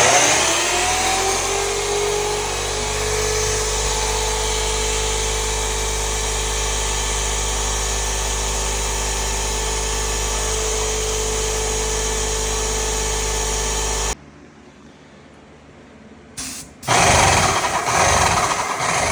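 Graco X5 Magnum paint sprayer's motor switched on, spinning up within about a second and running steadily, then shut off about fourteen seconds in. After a brief blip it is switched on again near the end.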